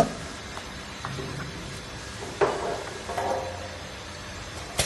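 Fruit bar extrusion machine running with a steady low hum and a faint whine, broken by a few irregular knocks and clatters: a sharp knock about two and a half seconds in with rattling after it, and sharp clicks near the end.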